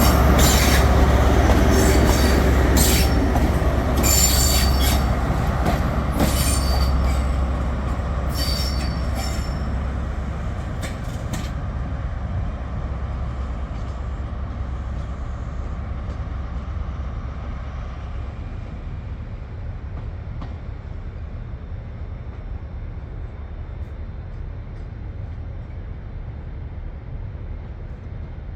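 A train running along the track, its wheels squealing in repeated high bursts for roughly the first ten seconds over a low rumble, which then fades steadily as the train moves away.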